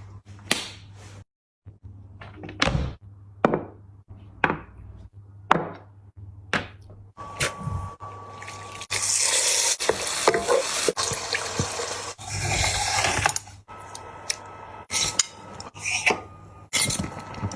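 Cutlery and dishes clinking, with a sharp click about once a second. From about seven seconds in there is a louder stretch of continuous noise with clinks through it.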